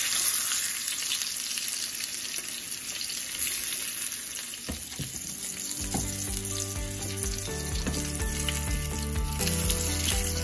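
Salmon fillets sizzling as they fry in butter in a nonstick pan, with a few short knocks of a spatula against the pan as the pieces are lifted out. Soft background music comes in about halfway through.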